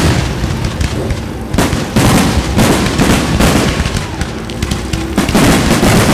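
Aerial fireworks shells bursting overhead: a string of sharp booms a second or so apart, over a continuous low rumble.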